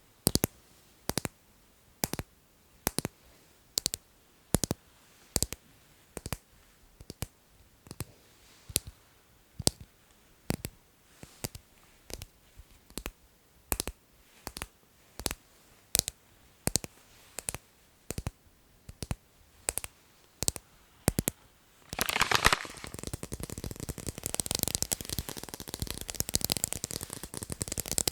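ASMR tapping: sharp taps in a slow, regular pattern, about one every 0.8 seconds and often doubled. About 22 seconds in, the pattern breaks into fast, dense, continuous tapping.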